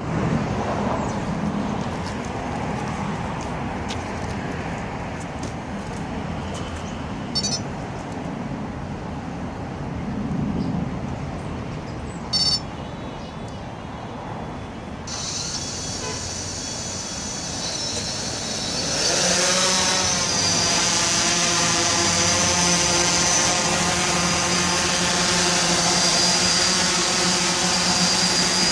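Yuneec Typhoon H hexacopter's six electric motors and propellers starting about halfway through, then rising in pitch a few seconds later and holding a steady, many-toned hum as the drone lifts off and hovers. Before the motors start there is street traffic noise with two short high beeps.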